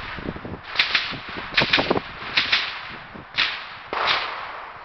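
About eight rifle shots, several fired in quick pairs, each a sharp crack with a short echo.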